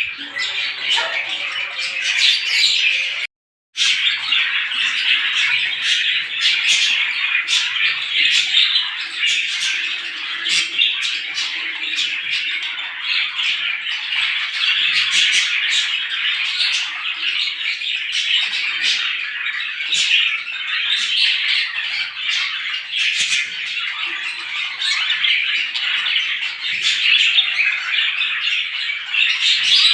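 A large flock of sparrows chirping and chattering together in a dense, continuous morning chorus, with a brief dropout to silence about three and a half seconds in.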